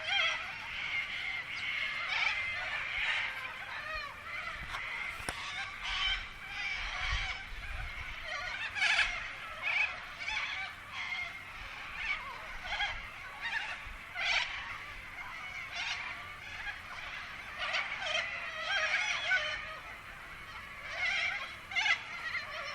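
A flock of birds calling noisily together, a dense overlapping chatter with frequent louder squawks standing out.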